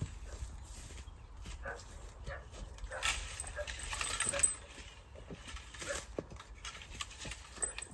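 A dog making faint sounds close by, with a spell of rustling noise about three seconds in that lasts about a second and a half.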